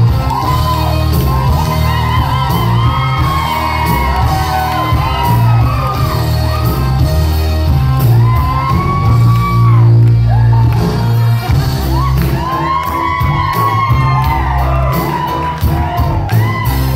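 Loud music with a heavy bass line playing through a PA system in a large room, with people shouting and whooping over it.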